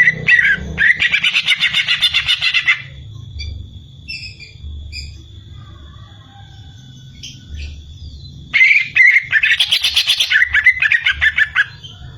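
Cucak ijo (green leafbird) singing: a loud burst of rapid chattering notes at the start and another about two-thirds of the way through, with scattered softer calls between.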